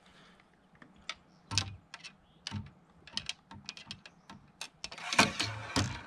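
Scattered light clicks and knocks of a fishing rod being slid into a kayak's low rod storage, tapping against the plastic hull and fittings, with a denser clatter near the end.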